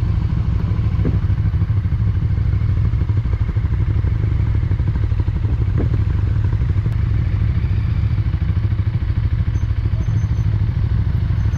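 KTM 1290 Super Duke R's V-twin engine running steadily at low speed as the bike rolls slowly, a deep rapid pulsing.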